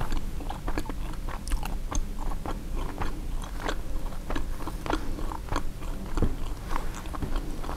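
A person chewing a mouthful of a turkey sausage, egg and cheese bagel sandwich close to the microphone: an irregular run of small clicks, smacks and soft crunches.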